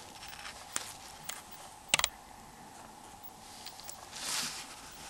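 Faint clicks from the Nokia 6300's plastic housing parts being handled, with one sharper double click about two seconds in and a short rustle near the end.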